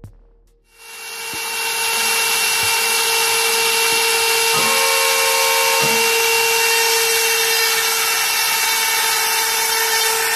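A power cutting tool starts under a second in and runs steadily with a constant whine and a strong hiss, cutting through the embroidery machine's frame to shorten it.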